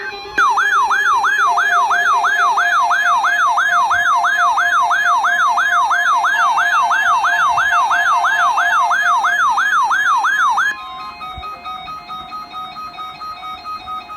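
Loud warbling alarm tone sweeping up and down about two and a half times a second for about ten seconds, then cutting off suddenly: a weather radio's public warning alarm tone being tested. Music plays underneath it and carries on after it stops.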